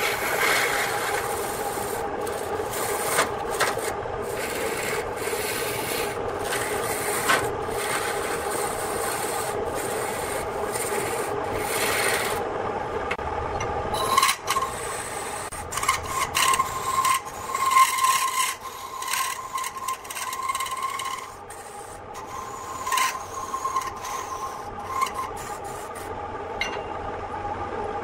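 Turning tool cutting into a spinning wooden workpiece on a homemade motor-driven lathe: a continuous scraping of wood over the steady hum of the motor. About halfway through, the cutting turns patchy and uneven, and a thin whine comes and goes with it.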